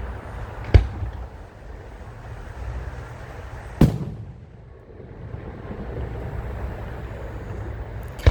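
Fireworks bursting: a sharp bang about a second in and another near four seconds, each trailing off in a rumbling echo, with a third just as it ends, over the low rumble of the ongoing display.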